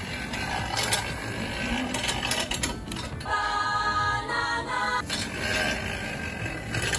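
Slow-descent escape device (kankōki) paying out its rope as a person is lowered, with a fast, steady mechanical rattle. About three seconds in, a short musical jingle plays over it for about two seconds.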